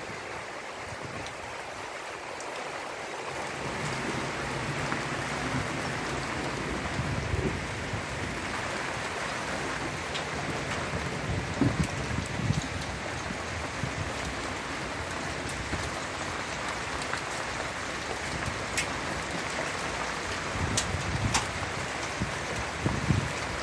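Heavy rain falling steadily on the yard and roof during a thunderstorm, swelling a little louder a few seconds in, with a few sharp ticks here and there.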